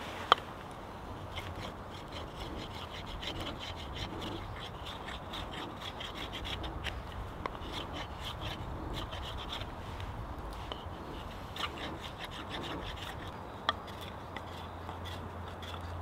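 Knife blade scraping and shaving along a wooden stick in repeated short strokes, with a single sharp tap just after the start.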